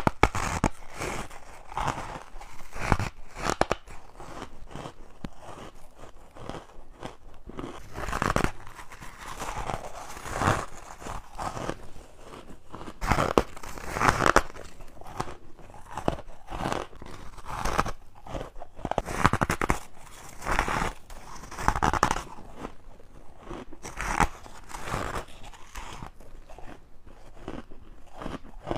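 Teeth biting into hard frozen ice chunks, a string of separate crisp crunches at irregular intervals of one to a few seconds.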